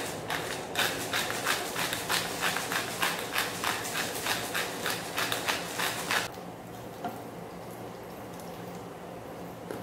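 Knife chopping on a cutting board in quick, even strokes, about four a second, which stop suddenly about six seconds in. A steady low hum remains after the chopping ends.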